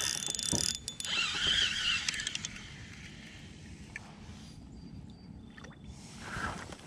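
A fabric sleeve brushing and rubbing close to the camera microphone for the first couple of seconds, then a quiet outdoor background.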